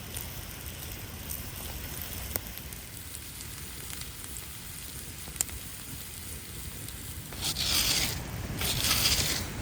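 Pancake batter sizzling as it fries in a pan, a steady hiss with a few faint clicks. Near the end come two louder bursts of hissing.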